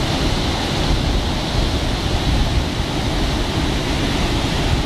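Steady rush of a large waterfall in flood, a heavy muddy torrent plunging over a cliff into its gorge.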